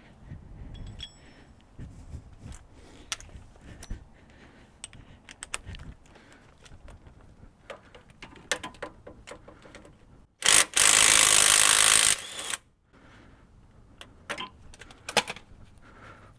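Light metallic clinks and taps of tools and hardware, then about ten seconds in an impact wrench with a 15 mm socket on a wobble extension fires a short blip and a burst of over a second before cutting off, loosening a bolt on the front half shaft's inner flange. More scattered clinks follow.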